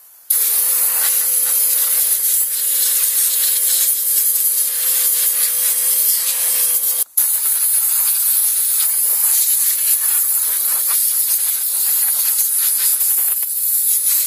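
Compressed-air blow gun blasting air into a lawn tractor's engine bay to clear grass and debris from the air-cooled engine's cooling fins: a loud, steady hiss with a low steady tone underneath, cut off for a moment about halfway through.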